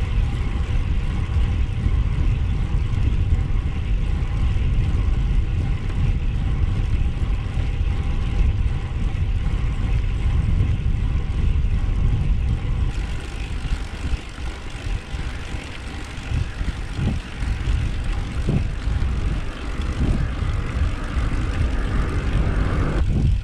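Wind buffeting a moving cyclist's microphone: a heavy, gusting low rumble with a hiss above it. It eases a little about midway and builds again near the end.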